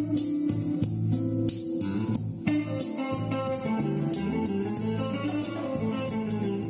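Fender Stratocaster electric guitar playing an improvised Dorian-mode lead line of single notes over a backing groove with bass and a steady beat.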